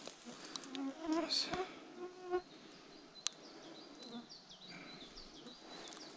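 Flying insects buzzing close by, passing with a droning hum in the first couple of seconds.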